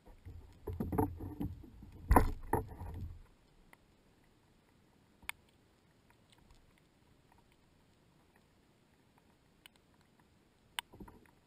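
Knocks, rattling and handling noise from gear against a plastic kayak, busiest in the first three seconds with a sharp knock about two seconds in, then a few single clicks.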